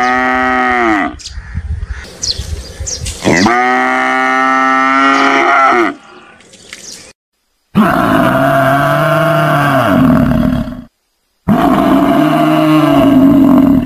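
Buffalo calling: two moo-like lowing calls from water buffalo, each dropping in pitch, followed after a brief pause by two long, low, growling bellows from an American bison, each about three seconds long.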